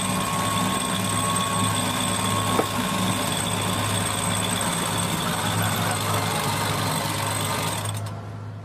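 Electric sheet winch running steadily with a whine while the headsail is unfurled, stopping sharply near the end. Under it the boat's diesel engines idle with a low hum that carries on after the winch stops.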